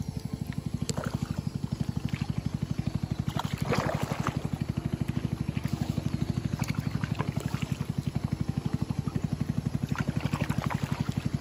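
Motorboat engine running steadily with a fast, even pulse. A brief louder swish of water about four seconds in.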